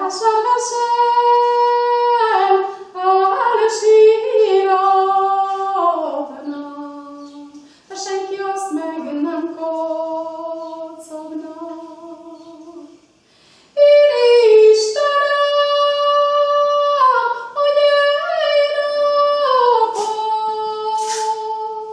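A woman singing a Csángó Hungarian folk song solo and unaccompanied, in slow phrases of long held notes that step and slide between pitches, with two short breaks for breath about 8 and 13 seconds in.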